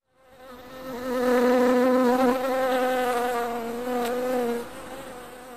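A bee buzzing: one steady, slightly wavering hum that swells in over the first second, holds, and falls away near the end.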